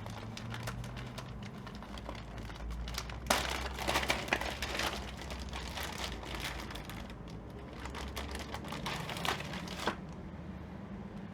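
Plastic parts of a welding helmet being handled: irregular clicks, rattles and crinkling, busiest about three to five seconds in and again between about seven and ten seconds.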